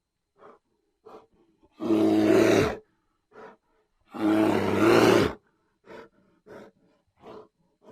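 Lion roaring: two long, loud roars, then a series of short grunts spaced under a second apart.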